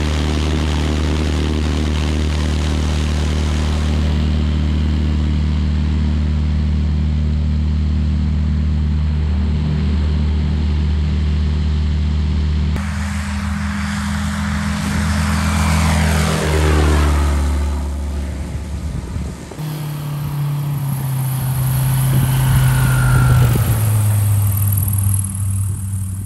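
Edited sound effect of a propeller airplane engine running steadily at one pitch. About 13 seconds in it cuts abruptly to a louder, changing engine note that rises in pitch. It cuts again about 20 seconds in to a steady run that swells louder.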